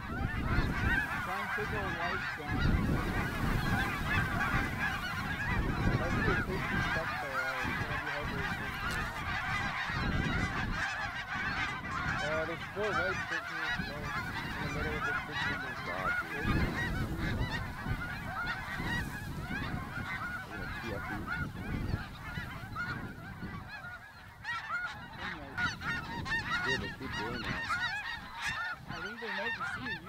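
A large flock of snow geese calling overhead: a constant din of many overlapping honks, with a low rumble underneath.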